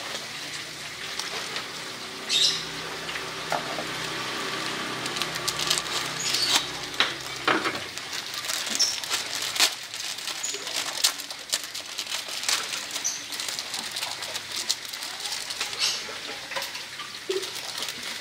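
Water with greens and an egg bubbling and sizzling in a wok as it comes to the boil, with many small crackles and pops. A low hum underneath stops about eight seconds in.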